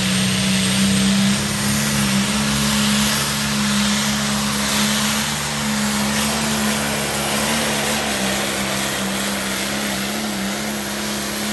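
Green pulling tractor's diesel engine running flat out under load as it drags the weight sled, a loud steady drone with a rasping exhaust. The engine sound drops off suddenly near the end as the throttle is cut at the end of the pull.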